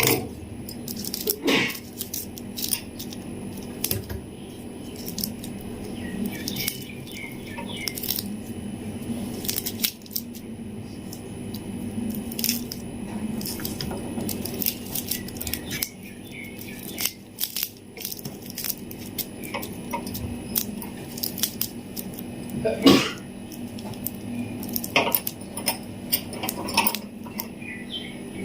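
Plastic-wrapped lollipops and toffees and their packaging being handled: irregular clicks, rattles and crinkles, with one louder clatter about 23 seconds in, over a steady low hum.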